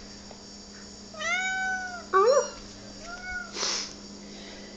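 Kitten meowing three times: a longer high call about a second in, then two shorter ones, each rising and falling in pitch. A brief breathy rush of noise follows near the end, over a faint steady hum.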